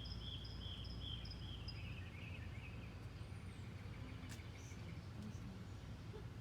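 Bird calling: a quick series of short high chirps during the first two seconds, then fading, over a steady low rumble of outdoor background noise.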